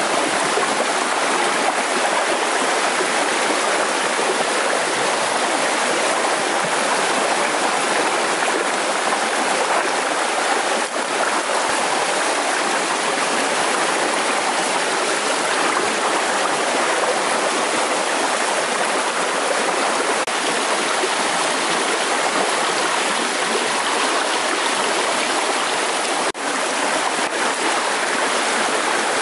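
Fast-flowing river rushing steadily: an unbroken hiss of moving water.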